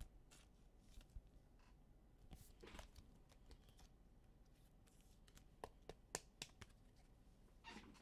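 Faint rustling and a few light clicks of trading cards being handled, with a short rustle a couple of seconds in and a run of small clicks about two thirds of the way through.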